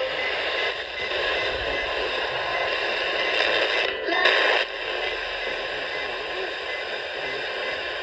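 Steady FM radio static hiss from a weather alert clock radio's speaker as its FM tuner is stepped down the band between stations, the hiss shifting briefly about four seconds in.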